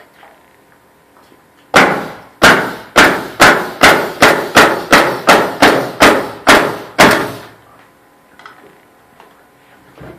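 Hammer driving nails into wooden ceiling framing: about thirteen sharp blows over some six seconds, coming quicker after the first few, each ringing briefly.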